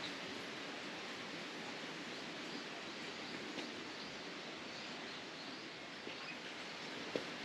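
Steady outdoor natural ambience: an even hiss, with faint short high ticks scattered through it and one sharp click about seven seconds in.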